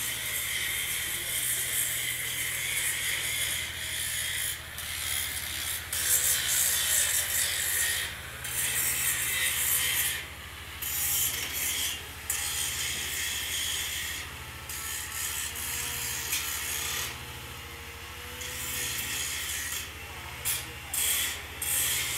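Electric angle grinder grinding welded steel frames, a harsh high grinding that drops away briefly several times as the disc is lifted off the metal.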